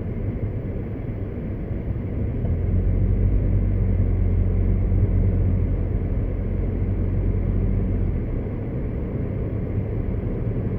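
Suzuki Baleno RS's 1.0-litre turbocharged three-cylinder engine pulling under acceleration, heard from inside the cabin over road noise. Its low drone grows louder about two and a half seconds in and eases off a little near the end.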